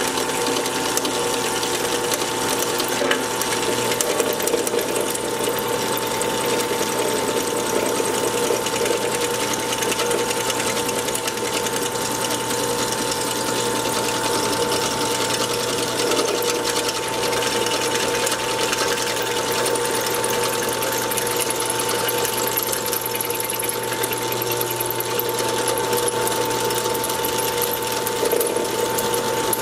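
Drill press running steadily with a constant whine, cutting a keyway into an automotive pulley.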